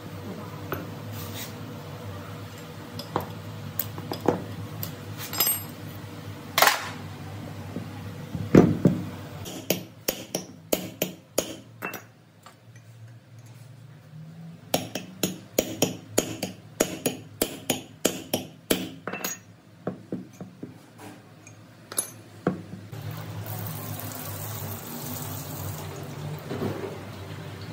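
Small metal parts and tools clinking and tapping against each other: scattered knocks at first, then a long run of quick clinks through the middle, over a steady low hum.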